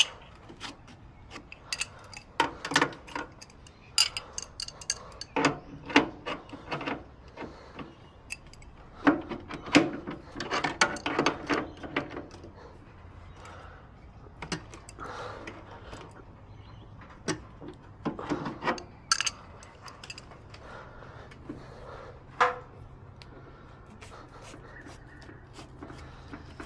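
Adjustable wrench clinking and scraping against the brass flare nuts and service valves of an air-conditioner outdoor unit: irregular sharp metallic clicks and knocks, some in quick clusters.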